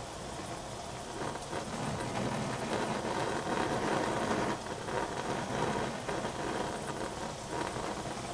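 Food simmering in a covered stainless steel saucepan on a gas burner: a steady bubbling, crackling hiss, a little louder in the middle.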